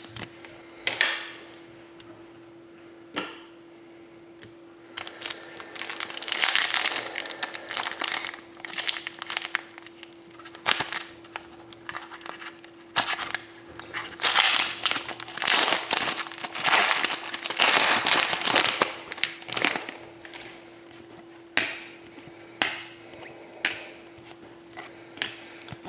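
Hockey trading cards and their packaging being handled: irregular rustling, crinkling and sliding scrapes with small clicks, busiest through the middle. A faint steady hum runs underneath.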